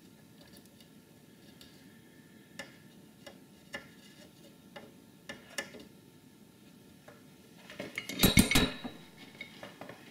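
Light scattered clicks and taps of a soldering iron and copper desoldering braid being worked on a circuit board's pads to wick off old solder, with a louder burst of clattering handling noise about eight seconds in.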